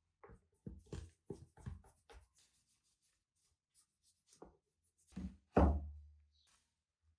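Pieces of a rusty pipe wrench and hand tools knocking on a workbench: a quick run of about six light knocks, then two heavier knocks a little past five seconds in, the second the loudest with a short low ring.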